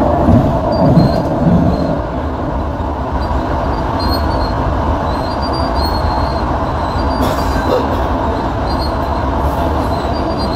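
Steady rumble of a light-rail car's wheels and running gear, heard from inside the car while it runs along the track.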